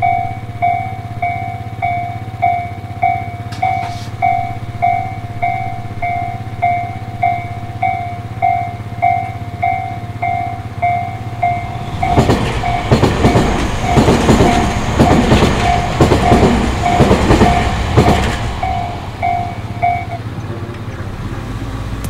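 Japanese level-crossing warning alarm sounding its repeating electronic bell tone, about two strikes a second. About halfway through, an electric train passes with loud rumbling and rhythmic clatter of wheels over the rail joints. The alarm stops near the end, after the train has gone by.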